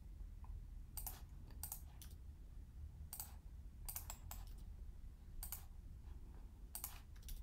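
Faint, scattered clicks and key presses on a computer mouse and keyboard, about nine, some in quick pairs, over a low steady hum.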